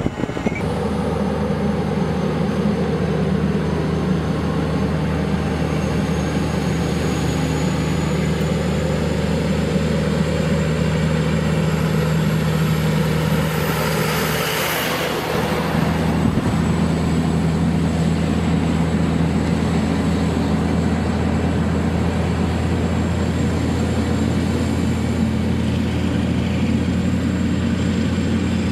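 Heavy diesel truck engines running in a steady low drone. About halfway through, a rising high whistle ends in a short whoosh and the drone dips briefly, then carries on.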